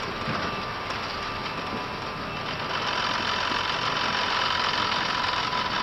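Airbus A320 cockpit noise at takeoff thrust during rotation and liftoff: a steady rush of engine and airflow noise with a thin steady whine, growing slightly louder about halfway through.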